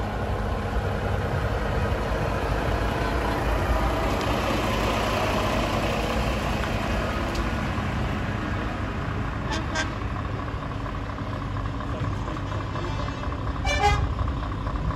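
Heavy truck diesel engines running as tractor units drive slowly past, with an engine rising in pitch about four to six seconds in. A brief horn toot sounds about ten seconds in, and a louder, short horn blast sounds near the end.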